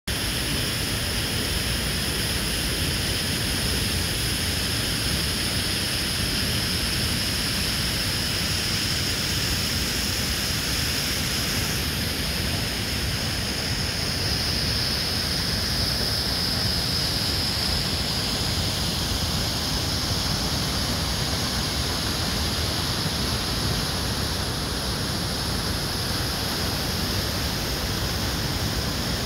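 Sooke River rapids and small falls rushing through a rocky canyon: a steady, unbroken roar of whitewater, its hiss shifting a little in tone about twelve seconds in.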